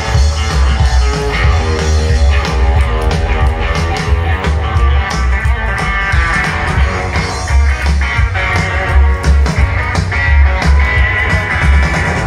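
Live rockabilly band playing an instrumental break, with an electric guitar lead over a steady beat of drums and bass, heard through a large outdoor PA.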